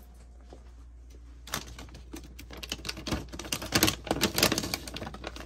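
Plastic Pup-Peroni dog-treat bag crinkling as a hand rummages inside it for a treat stick: a quick, uneven run of crackles starting about a second and a half in.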